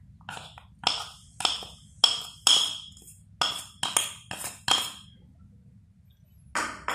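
A metal spoon knocking and scraping against a small bowl to tap gram flour out of it: about a dozen sharp clinks, roughly two a second, then a short scrape near the end.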